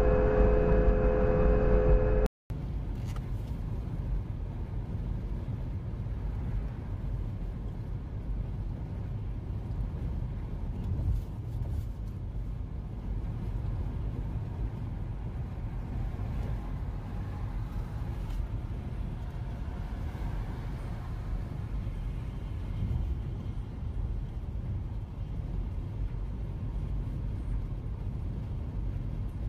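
Steady low road and engine rumble of a car driving, picked up inside the cabin by a dashcam. In the first two seconds a louder, steady two-note tone sounds, then cuts off sharply.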